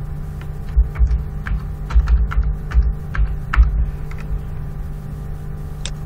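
Computer keyboard keys clicking as a password is typed: a run of irregular keystrokes for about three seconds, then a single sharper mouse click near the end as the Sign In button is pressed. A steady low electrical hum runs underneath.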